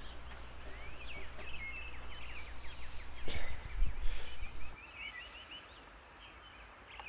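Small birds chirping and twittering: many quick, high, sliding chirps that thin out after about five seconds, with a single knock about three seconds in.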